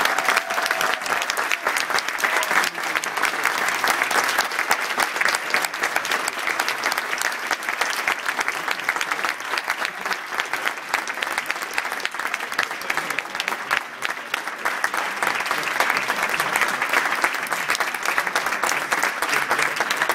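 Audience applauding: dense, sustained clapping that dips a little past the middle and swells again near the end.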